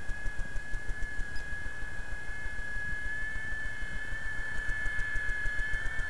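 Radio-controlled model helicopter flying overhead: a steady high whine from the motor and rotor over a rapid, even low pulsing.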